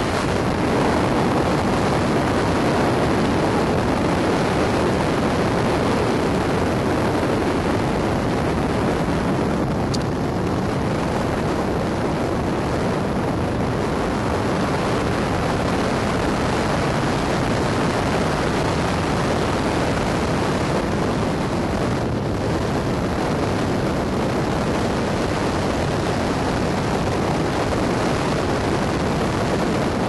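Steady rush of air past an engineless glider's cockpit in flight, a loud even noise of airflow buffeting the microphone.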